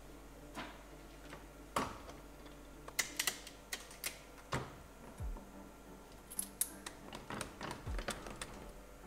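Irregular light metal clicks and knocks as a gold bangle is fitted onto a segmented expanding mandrel and its lever is worked, shaping the flat bangle into a curve. A few dull thumps come in among them.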